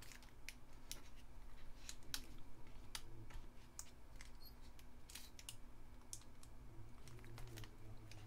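Scattered faint clicks and light taps of hands handling a liquid glue bottle and small paper cut-outs on a craft table, over a low steady hum.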